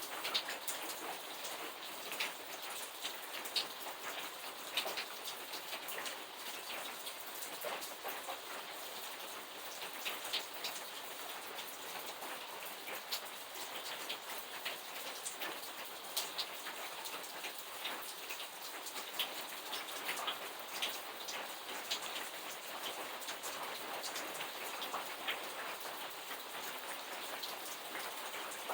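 Steady rain falling, a dense hiss with many individual drops ticking irregularly on a hard surface.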